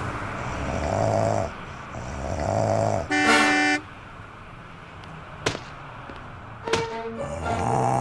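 Cartoon snoring sound effect, slow breaths in and out twice, then a loud vehicle horn toot lasting under a second about three seconds in. Two short clicks follow, and the snoring starts again near the end.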